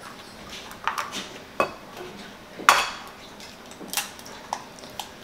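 An egg knocked against the rim of a ceramic mixing bowl and its shell cracked open by hand: a string of short, sharp clicks and taps, the loudest a single knock about two and a half seconds in.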